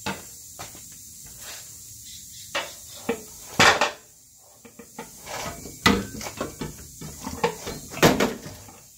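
Irregular metal clanks and knocks from hand work under a car: tools and parts knocking against the underbody. The loudest knocks come a little before halfway through and again near the end.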